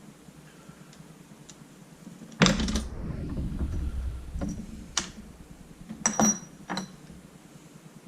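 Parts of a Spyder paintball marker being handled and set down: one loud knock about two and a half seconds in with a low rumble after it, then a few sharp clicks and clacks.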